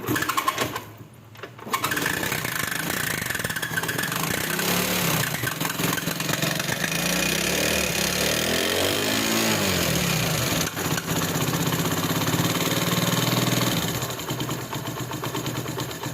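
Honda CD 70's single-cylinder four-stroke engine being started, catching about two seconds in and running with a chak-chak ticking noise, revved up and down around the middle and settling to a lower idle near the end. The mechanic traces the noise to a worn cam and rocker arms starved of oil in the head.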